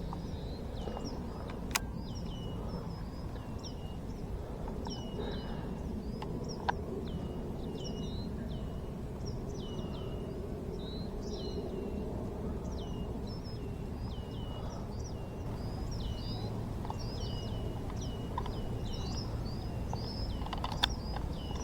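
Small birds chirping over and over, each note short and dropping in pitch, over a steady low outdoor background noise. Two sharp clicks, one about two seconds in and one near seven seconds.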